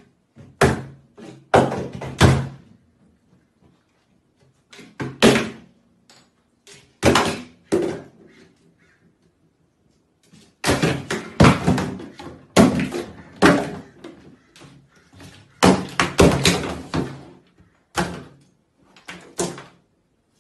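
Shampoo and toiletry bottles knocked off a bathtub ledge, thudding and clattering into the tub in several separate bursts of knocks.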